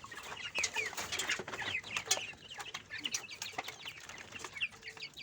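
A flock of kienyeji chicks peeping over and over while feeding: many short, high, falling chirps, with scattered light clicks among them.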